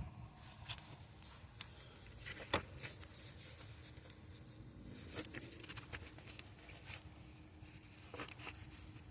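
Scattered light clicks, taps and rustling of parts and tools being handled, the sharpest knocks between about two and a half and three seconds in and again near five seconds.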